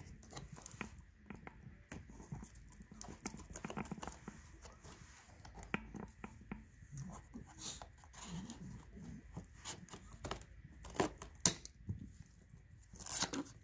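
Scissors slitting the packing tape on a cardboard box: short scratchy scrapes and clicks of blade on tape and cardboard, with a louder tearing sound near the end.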